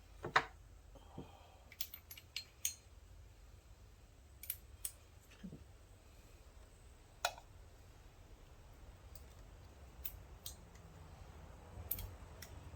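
Scattered light metal clicks and clinks, a dozen or so at uneven intervals, as transmission gears, shafts and parts are handled and set into the gearbox case.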